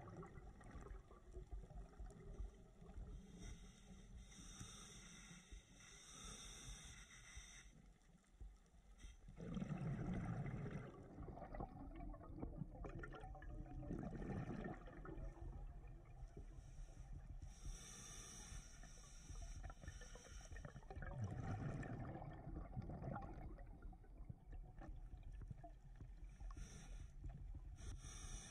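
Scuba diver breathing underwater through a regulator in a slow cycle: long hissing inhalations alternating with gurgling bursts of exhaled bubbles.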